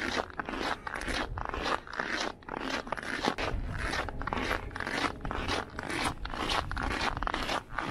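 Footsteps crunching on cold, hard-packed snow at a steady walking pace, about two steps a second, with a low rumble underneath.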